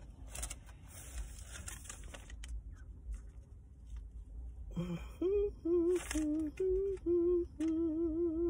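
A woman humming a few bars of a tune with her lips closed: several short held notes, then a long note with a slight waver. Before the humming, soft rustling of paper and a foil sandwich wrapper.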